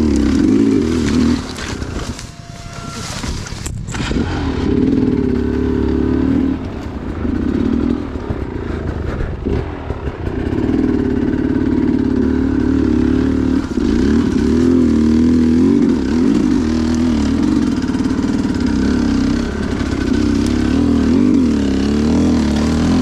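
Two-stroke dirt bike engine being ridden under constantly changing throttle, revving up and easing off again and again, with a few short drops in revs. There is a single sharp knock about four seconds in.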